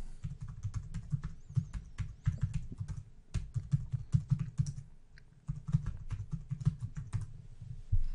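Typing on a computer keyboard: rapid, irregular keystrokes with a short pause a little past halfway.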